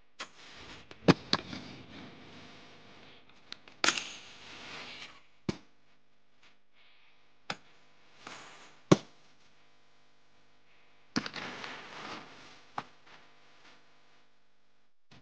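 Aggressive inline skates landing on and grinding along metal handrails and concrete: a series of sharp smacks, several followed by a second or so of scraping as the skates slide and roll away.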